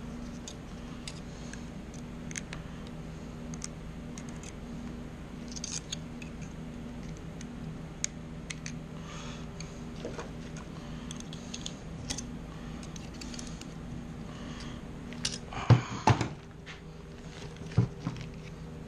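Snap-ring pliers and a pick clicking and scraping against a tight snap ring on a transfer case main shaft, with small metal clicks throughout. Near the end come a few louder metal clanks.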